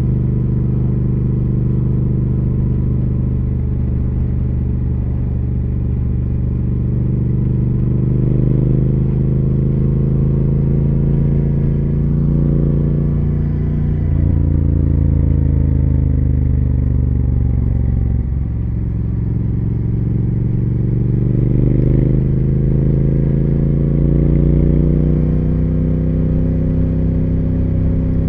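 Triumph Speed Twin 1200's parallel-twin engine and exhaust under way on the road. It holds steady revs, then eases off with falling pitch about halfway through and picks up again with rising pitch.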